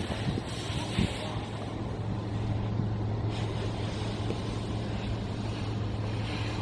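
A vehicle engine idling, a steady low hum with rumble beneath it, with a brief knock about a second in.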